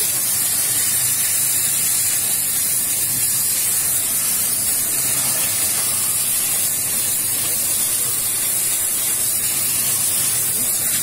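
Scarpavapor shoe-cleaning machine's hand nozzle spraying cleaning foam onto a shoe, a steady, unbroken hiss.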